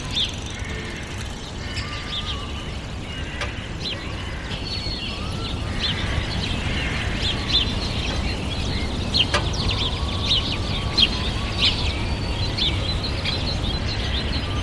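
Several birds chirping in a busy chorus of short, quick chirps and a few brief whistled notes, growing more frequent about halfway through, over a steady low rumble of outdoor background noise.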